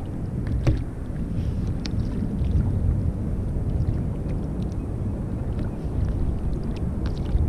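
Wind rumbling on the microphone from a kayak on the open sea, steady and low. A few light clicks about a second and two seconds in.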